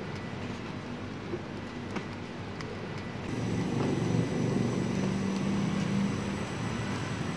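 Steady low mechanical rumble, like a motor or passing traffic. It grows louder about halfway through, where a steady low hum comes in, with a few faint clicks before it.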